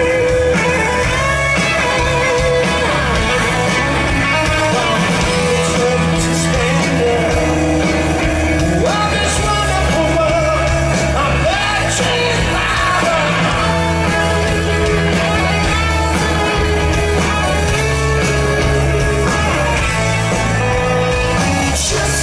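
Live rock band playing: distorted electric guitar, bass and drums, with singing over them.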